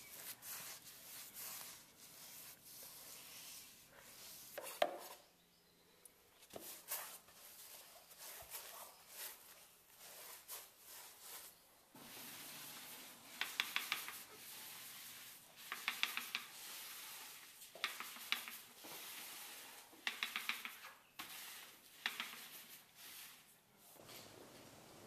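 Paintbrush scrubbing concrete stain onto a concrete floor in short, scratchy strokes. About halfway through, a paint roller on an extension pole takes over, rolling stain across the concrete in passes roughly every two seconds, each pass with a quick run of ticks.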